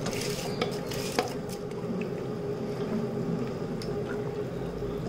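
Washed, drained rice scraped off a bowl with a spoon into a pot of boiling water, then stirred, the water bubbling. A few light knocks of the spoon against the bowl or the pot rim.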